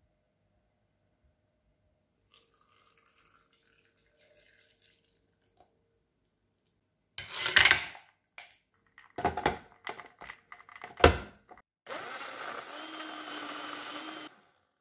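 Countertop blender whirring steadily as it blends banana and milk, then stopping shortly before the end. Before it starts there are several short loud knocks and rustles, the loudest a sharp clunk.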